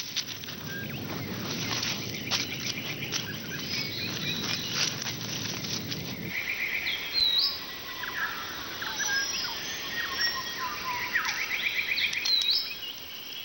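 Scratching and rustling of soil and dry leaf litter, thick with small clicks and crackles, as a malleefowl chick digs up through its nest mound; it stops about six seconds in. Then birds chirp and trill: short rising whistles and fast rattling trills, repeated a few times.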